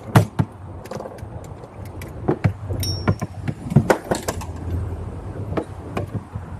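Irregular sharp clicks and knocks as fishing tackle is handled in a small boat, over a steady low rumble.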